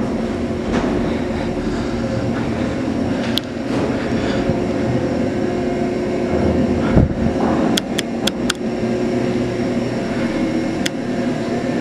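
Steady mechanical hum with several held tones, echoing in a concrete stairwell, with footsteps on the stairs. There is a thump about seven seconds in, and a few sharp clicks shortly after it and again near the end.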